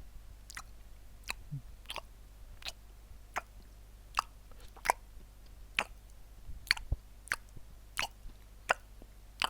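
Close-up chewing of crunchy tortilla food, with a sharp crunch about every two-thirds of a second.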